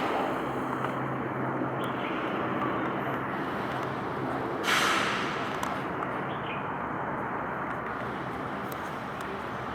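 Steady hum of motor traffic with a low engine drone that fades after about four seconds, and a short sharp hiss of a heavy vehicle's air brakes near the middle.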